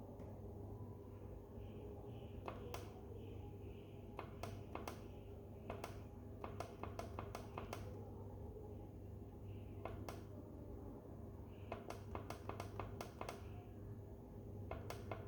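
Push-button keys on a furnace's digital temperature controller clicking in quick runs of several presses, stepping the set temperature up. A steady low electrical hum lies underneath.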